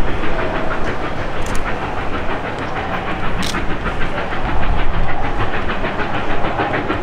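Two Victorian Railways R class steam locomotives working hard on the climb, their exhaust chuffing in a rapid, even beat over a steady hiss and rumble.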